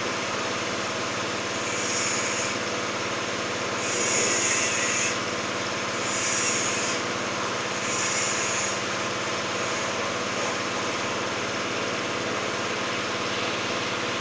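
Lakoni Daytona 120 G high-pressure washer running steadily, with four short bursts of hissing spray over the first nine seconds or so.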